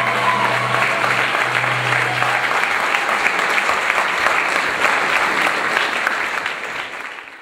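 Audience applauding steadily, with the last of the dance music's low sustained note dying away under it in the first few seconds. The applause fades out near the end.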